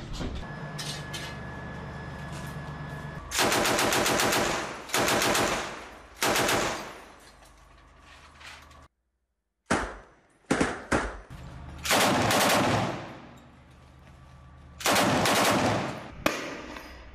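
Automatic machine-gun fire in repeated bursts, about eight of them, each up to a second or so long. The first burst comes about three seconds in, after a lower steady background noise. The sound cuts out abruptly for a moment about nine seconds in.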